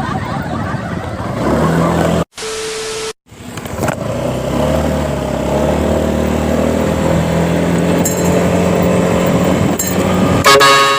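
Vehicle engine running steadily, broken about two seconds in by a brief cut holding a single steady tone. About ten and a half seconds in, a loud, multi-toned vehicle horn blasts.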